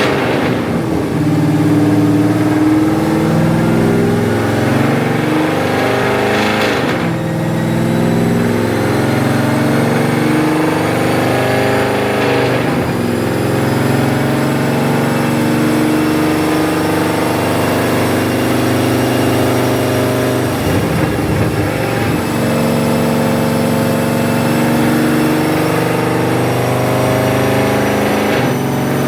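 Cammed Camaro V8 running under way, pulling through the gears with a short break at each upshift, about four times. A faint whine rises steadily as the car gathers speed.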